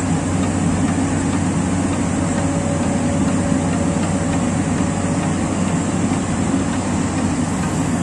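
Komatsu PC200-8 excavator's diesel engine running steadily at raised throttle while the hydraulics lift the boom, a constant drone. A faint thin whine sits under it for a few seconds in the middle.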